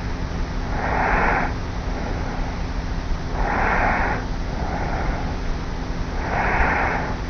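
A young woman snoring lightly in her sleep while lying on her back, close to a tape recorder on the pillow. The breaths are regular, three stronger ones about three seconds apart with softer breaths between them, over a steady low hum and hiss.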